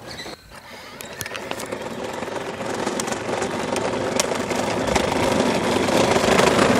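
Stock 12-volt Power Wheels Stinger XS ride-on running: its electric drive motors and gearboxes whine and its wheels rumble over asphalt. The sound grows steadily louder as the buggy drives toward the microphone.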